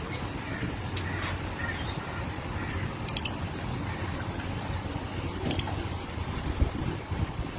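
Lovebirds giving a few short, high chirps, at the start, about three seconds in and about five and a half seconds in, over a steady low hum.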